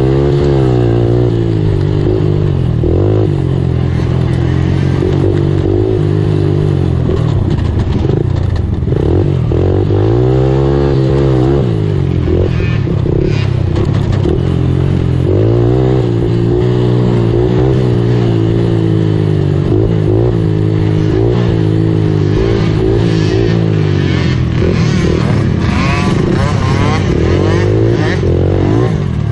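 Race ATV's engine, heard from the rider's own machine, revving up and dropping back again and again as it accelerates, shifts and slows along a rough cross-country trail.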